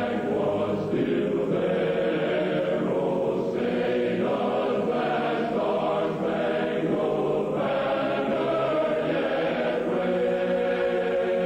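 Choral music: massed voices holding slow, sustained chords that change every second or two.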